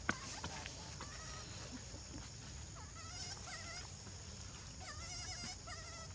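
Baby long-tailed macaque giving short, high, wavering whimpering cries, several in a row with pauses between.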